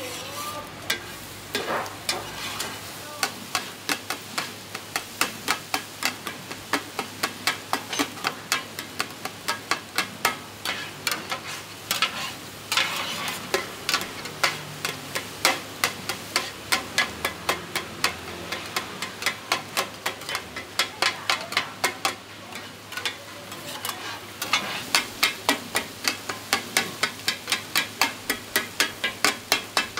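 A metal spatula and a flat metal scraper chopping and turning scrambled eggs in a large iron pan, clacking against the pan rapidly, about three strikes a second, in runs with short pauses. A faint sizzle runs underneath as the eggs fry.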